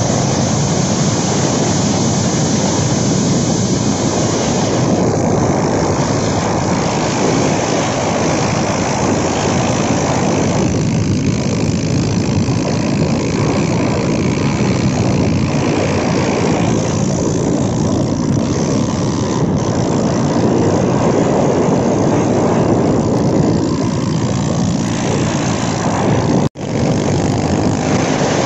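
Steady rush of wind and road noise from riding a motorcycle, with the engine running underneath. The sound cuts out for a split second near the end.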